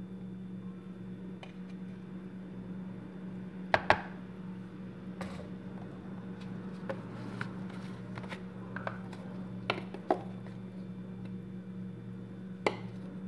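Kitchen handling sounds while spices are added to raw chicken in a plastic tub: a few sharp clicks and taps, two close together about four seconds in, more around ten seconds and near the end. A steady low hum runs underneath.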